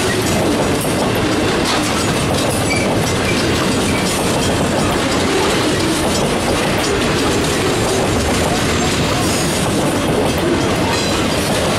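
Freight train of loaded log flatcars rolling past at close range: a steady, loud rolling noise of steel wheels on rail, with light clicks scattered through it.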